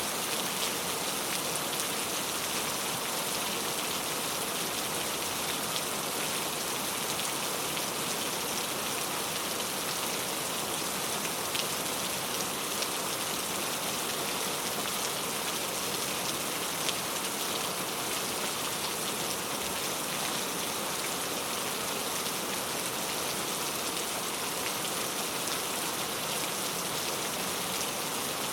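Steady rain falling on a surface, an even hiss with a few individual drops ticking now and then, without thunder.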